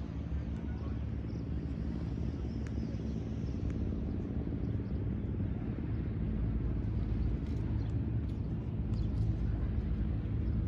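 Wind buffeting a phone's microphone: a steady low rumble that swells a little towards the end.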